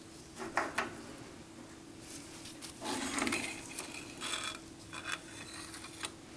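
Metal parts of a Grizzly G0752 lathe's cross slide being handled by hand during disassembly: a couple of clinks about half a second in, a longer metal-on-metal scrape about three seconds in, and a few light knocks near the end, over a faint steady hum.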